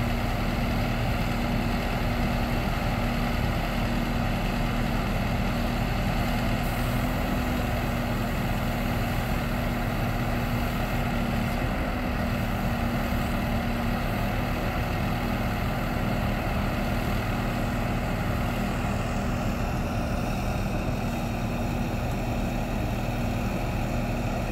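Heavy diesel engine idling steadily, with an even, unchanging low tone.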